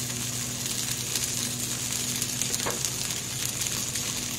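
Refined oil sizzling steadily on a flat tawa around sabudana-potato tikkis as they shallow-fry, a constant hiss with fine crackles.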